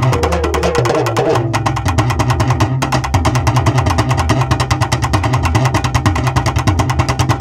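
Urumi melam ensemble of Tamil drums playing a fast, driving rhythm. A melodic line sounds over the drums for about the first second and a half, then the drums carry on alone.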